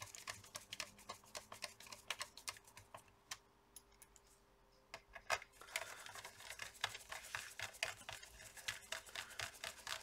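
Rapid light clicks and ticks of hand work with a small screwdriver and screws on a laptop's plastic case, with a pause of about two seconds midway.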